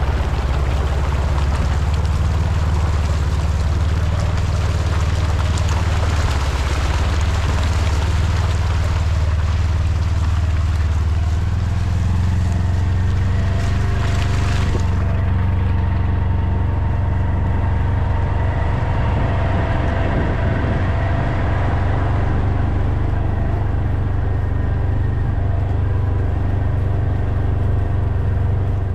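A vehicle engine running steadily, its low drone shifting in pitch about twelve seconds in, with a hissing rush of noise over it that drops away about halfway through.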